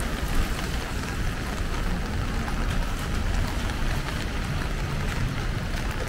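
Steady rain falling, with many small drop ticks over a constant hiss and a low rumble underneath.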